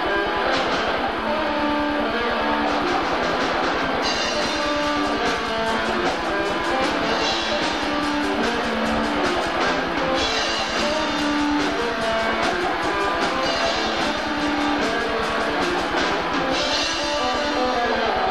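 Live rock band playing: electric guitars over a drum kit, with cymbals coming in about four seconds in and dropping out near the end.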